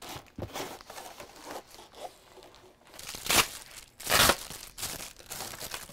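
Paper and plastic packing material rustling and crinkling as a cardboard shipping box is unpacked by hand, with two louder bursts about three and four seconds in.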